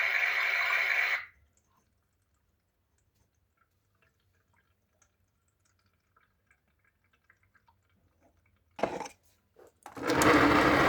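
Simba toy washing machine's small motor running with water in the drum, cutting off suddenly about a second in. Then near silence with faint drips and ticks, a short knock near the end, and the motor starting up again just before the end.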